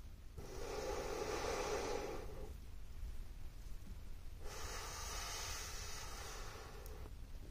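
A person blowing hard through a thin blow tube, two long steady blows of about two seconds each with a pause between.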